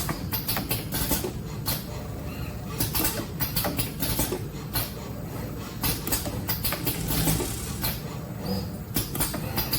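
SCARA pick-and-place robot cell running: a steady low machine hum with irregular small clicks and rattles as metal dental burs are shaken on the flexible vibration feeder plate and set into trays.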